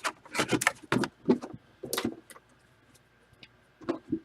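A quick run of light clicks and knocks from objects being handled, thinning to a few faint ticks, with two more knocks near the end.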